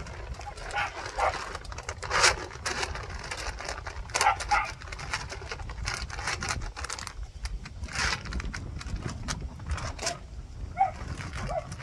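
Feed pellets poured from a sack into a galvanized metal trash can, with the sack rustling and crinkling in sharp bursts. A few short, squeaky animal calls come near the end.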